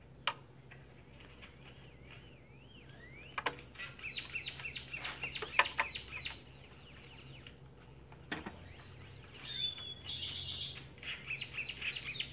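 A small bird singing: two bouts of rapid, repeated falling chirps, several a second, the first about four seconds in and the second near the end. A few sharp clicks stand apart from the song.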